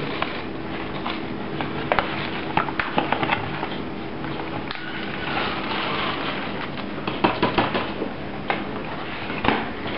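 Paper bag of bread flour mix rustling and crinkling as it is emptied into a bread machine pan and handled, with a few scattered light knocks and clicks.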